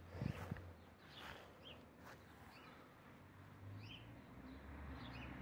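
Faint birds chirping, a few short high calls scattered through, over a quiet background. A couple of soft low thumps come just after the start, and a low hum builds in from about four seconds in.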